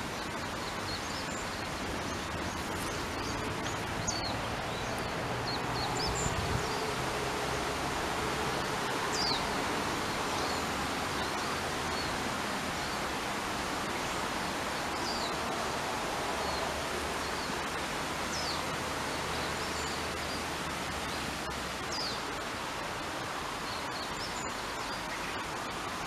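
Steady outdoor rushing noise with scattered short, high, falling chirps over it and an uneven low rumble now and then.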